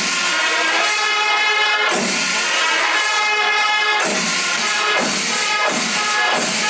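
Kerala temple melam ensemble playing loud held notes on wind instruments over chenda drum and ilathalam cymbal strokes. The strokes come closer together in the second half.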